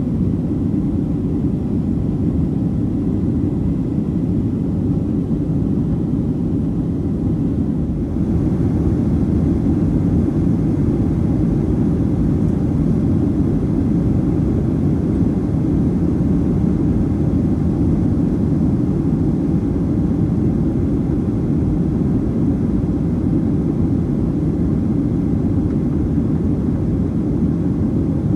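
Steady cabin noise of a Boeing 737-900ER in flight, heard from a window seat: the low, even rush of its CFM56-7B jet engines and the airflow past the fuselage, with a slight step up in level about eight seconds in.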